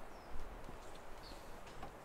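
A few soft knocks over a quiet outdoor background, the clearest about half a second in.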